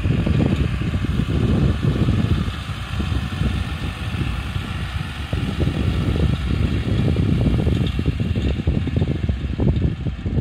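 New Holland tractor's diesel engine running steadily under load as it pulls a laser land leveler through loose soil.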